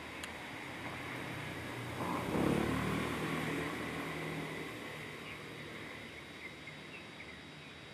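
A motor vehicle passing by: its engine sound builds to a peak about two and a half seconds in, then slowly fades. Under it runs a steady hiss with a thin, constant high tone.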